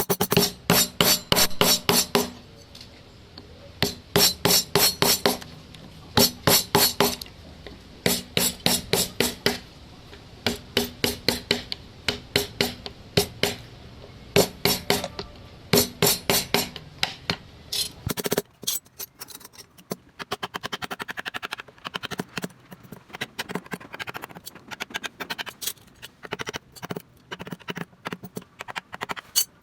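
Wooden mallet rapidly tapping a carving chisel into rosewood, in quick runs of sharp knocks separated by short pauses. From about the middle the taps become lighter and closer together.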